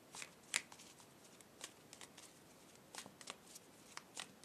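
A deck of tarot cards being shuffled by hand, the cards dropping from one hand into the other. The sound is a string of faint, uneven flicks and slaps.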